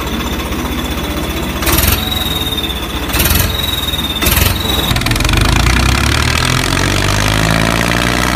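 Tractor diesel engine sound chugging steadily under load, with three short louder bursts in the first half; from about five seconds in the engine note shifts in pitch.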